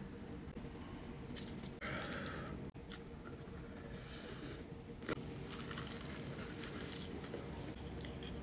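Quiet eating sounds: chopsticks picking saucy enoki beef rolls from a ceramic dish and mouthfuls being taken and chewed, with soft clicks and short rustling bursts over a steady faint hum.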